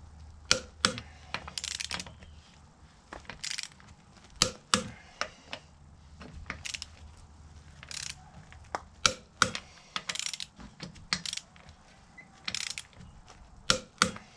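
Click-type torque wrench tightening a van's wheel fixings in turn. Sharp ratchet clicks come singly and in small groups, and the wrench clicks as each fixing reaches its set torque of 240 N·m.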